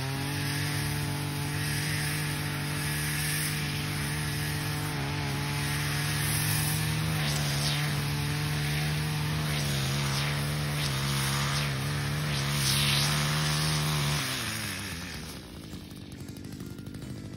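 Small engine of a long-shaft gas-powered brush-cutting tool held at high revs, a steady engine whine that wavers in pitch during the second half as it cuts through brush. It is let off and winds down near the end.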